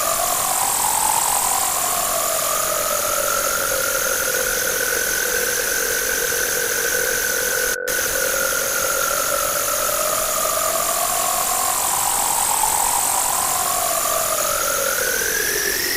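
Harsh electronic noise: loud static with several slow sweeping tones that rise and fall and cross each other, like a sci-fi 'alien' sound effect. It cuts out for an instant about eight seconds in.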